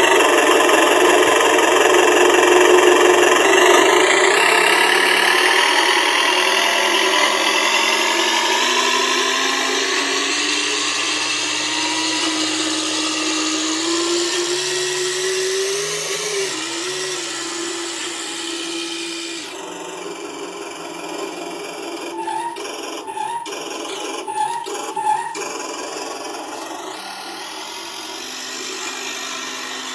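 Newly installed speaker sound system playing a continuous motor-like whine, its pitch climbing slowly over the first half and then settling lower. A few short, sharp blips come in quick succession a little past two-thirds of the way through, and the pitch starts rising again near the end.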